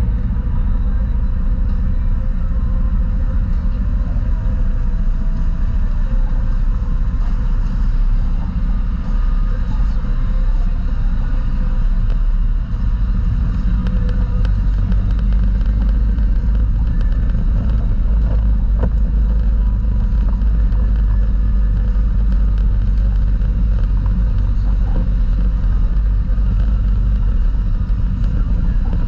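Off-road vehicle's engine running steadily while driving slowly along a rough dirt trail, a loud, constant low rumble with a few small knocks from the ride over the ruts.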